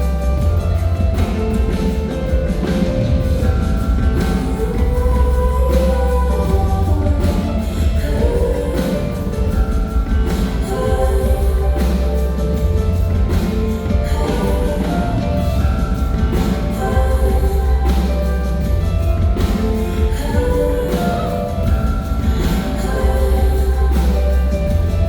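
Live concert music from a band with drums: sustained heavy bass notes and pitched instrument lines over a steady beat.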